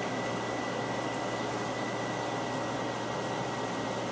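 Steady background hiss with a faint, constant high-pitched tone running under it.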